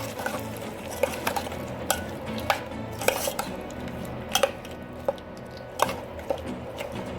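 Metal spoon stirring onions sautéing in oil in a cooking pan, scraping and clinking against the pan at irregular moments, about one or two knocks a second.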